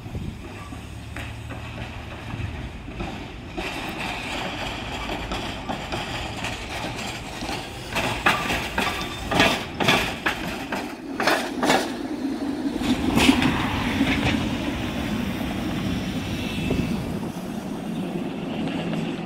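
SEPTA Kawasaki light-rail trolley car rolling past over the track switches, its wheels giving a quick run of sharp clacks about halfway through over a rising rumble that peaks just afterwards as the car goes by.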